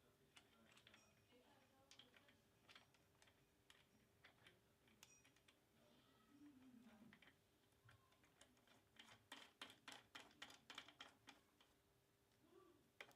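Faint clicks and light taps of small tools and parts being handled, with a quick run of rapid ticks near the end, over a faint steady hum.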